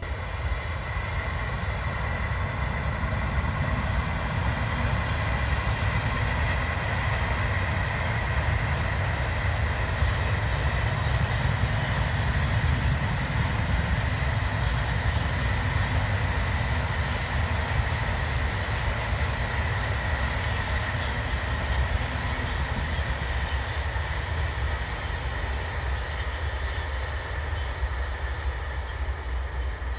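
Freight train of flat wagons hauled by two electric locomotives, passing at a distance: a steady rumble of wheels on rails with a faint high steady tone over it, growing slightly fainter toward the end.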